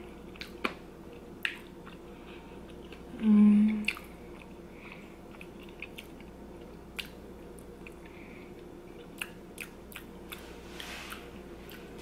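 Close-miked chewing of gravy-soaked poutine fries: scattered soft wet mouth clicks and smacks. About three seconds in there is a short, low closed-mouth hum.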